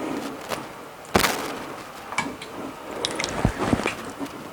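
Kitchen handling noises: scattered clicks and knocks of utensils and a bowl, with one sharp knock about a second in.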